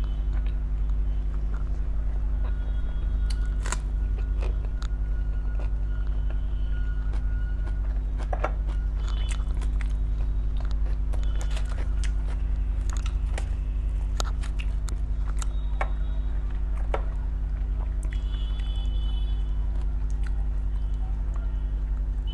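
A person chewing food, with scattered wet mouth clicks and smacks, over a steady low electrical hum.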